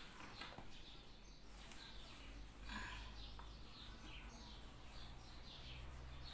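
Faint bird chirps, short falling notes repeated every fraction of a second, with one brief scuff about three seconds in.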